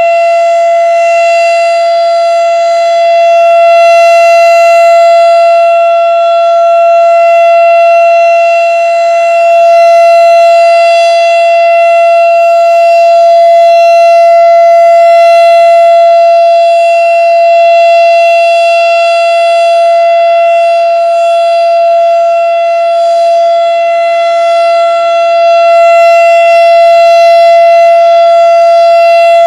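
Darley STH-10 outdoor warning siren sounding a loud, steady full alert tone at one unchanging pitch. Its loudness swells and eases slightly every several seconds.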